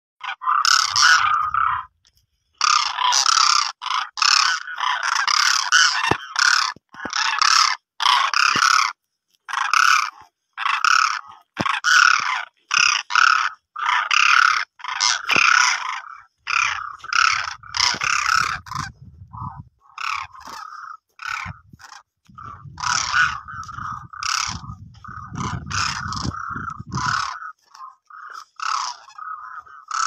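A flock of demoiselle cranes calling: many loud calls overlap in quick succession, broken by a few short pauses. A low rumble runs underneath through the second half.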